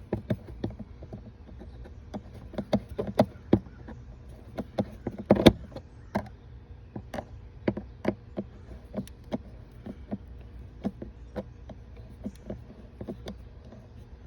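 Irregular clicks and knocks of hands refitting the air intake hose and its fastenings under a minivan's hood, with one louder knock about five seconds in.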